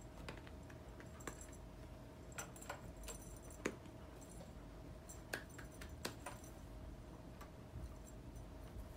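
A cat batting at and pouncing on a feather wand toy: scattered light taps and small jingly rattles, the sharpest tap about four seconds in, over a faint steady hum.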